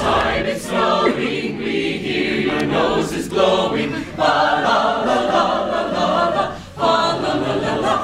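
A mixed choir of men's and women's voices singing together, in phrases with short breaks between them.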